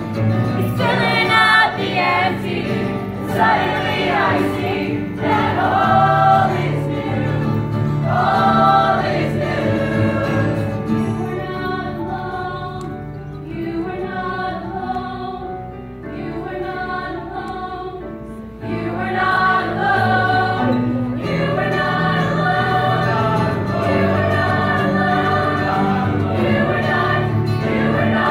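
Mixed-voice choir singing live with keyboard accompaniment; the singing drops softer past the middle and swells back to full strength about two-thirds of the way through.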